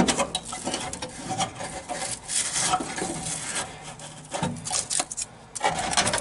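A hand scraping and raking packed dirt and rust debris out of a rusted truck cab-floor cavity: irregular scraping and rustling, with a short lull about two-thirds of the way through.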